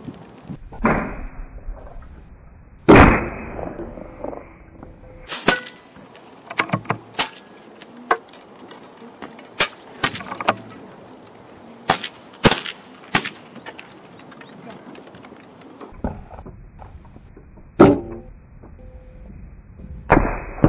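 Air rifle shots on a shooting range: a few loud reports with long low tails, and many shorter, fainter sharp cracks between them.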